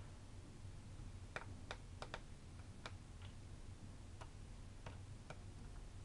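Light, irregular small clicks, about nine in all, from a precision screwdriver working tiny screws out of the bottom case of a Cr-48 laptop.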